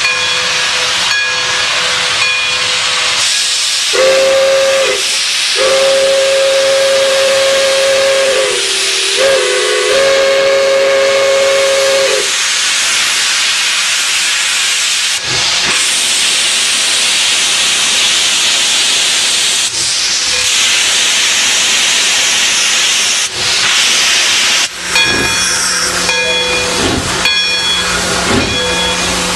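Pere Marquette 1225, a 2-8-4 Berkshire steam locomotive, with loud steam hissing throughout. From about four seconds in its two-tone chime whistle sounds for some eight seconds, broken into three or four blasts. Near the end come regular beats of exhaust and running gear as it passes.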